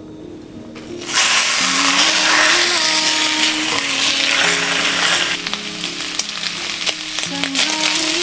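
Sliced pork belly sizzling and frying in hot oil in a pot, starting abruptly about a second in and stirred with tongs.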